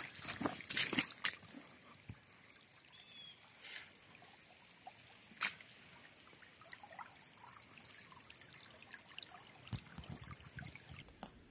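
A shallow runnel of water trickling down a forest trail. Dry fallen leaves crackle loudly in the first second or so, then only scattered soft rustles are heard over the trickle.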